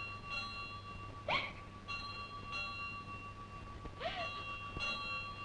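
A temple bell struck about three times, each strike followed by long steady ringing, over a low hum.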